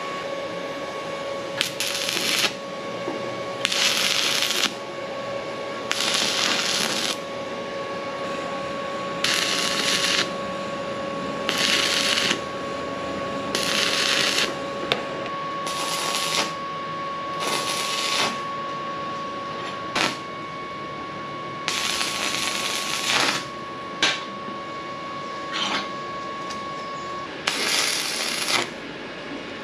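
A series of short arc-welding tacks on square steel tube: about ten bursts of crackling hiss, each under a second or so, roughly two seconds apart, over a steady hum.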